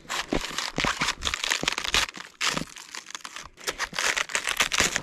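A knife cutting into a raw cabbage head, the crisp leaves crunching and tearing in quick, irregular strokes.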